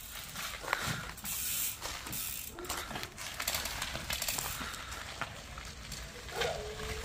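Loaded touring bicycle pushed off and ridden away over a gravel road: tyres crunching on the loose gravel, with irregular clicking from the rear hub's freewheel.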